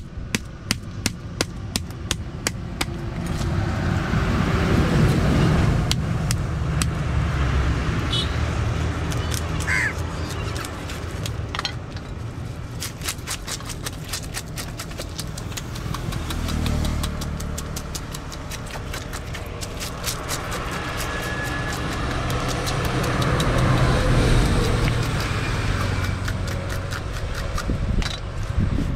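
A knife blade scraping scales off a tilapia on a wooden block, in quick repeated strokes that give a stream of sharp scrapes and ticks. A low vehicle rumble swells and fades twice, from traffic passing by.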